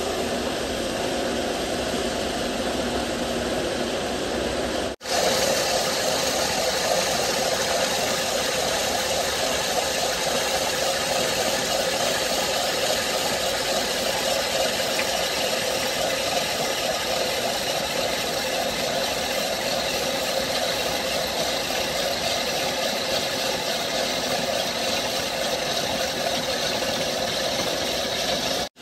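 A powered machine running steadily, a continuous mechanical noise that cuts out for an instant about five seconds in and resumes a little louder.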